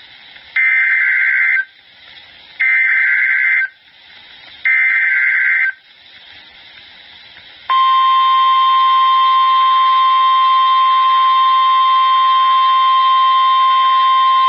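Emergency Alert System header: three data bursts of about a second each, spaced about two seconds apart. About eight seconds in, a steady single-pitch alert tone near 1 kHz begins, the National Weather Service attention tone that announces a tornado warning.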